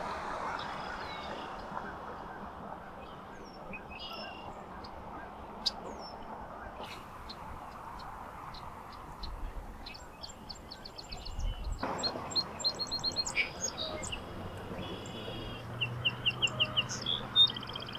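Small birds chirping, with short high calls scattered over a steady rushing background noise. About twelve seconds in the background changes abruptly, and the calls come thicker, with fast repeated trilled notes toward the end.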